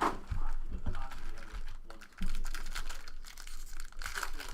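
Plastic wrappers of baseball card packs crinkling and tearing as the packs are opened, with irregular crackling rustle as the cards are handled.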